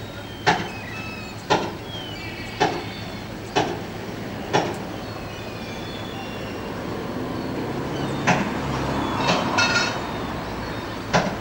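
A series of sharp knocks, five about a second apart, then a few more at irregular spacing, over a steady low background rumble.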